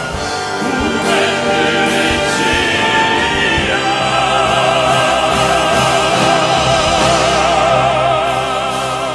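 Male crossover vocal quartet singing in operatic style with musical accompaniment. The voices hold long notes with wide vibrato through the second half, and the level starts to drop near the end.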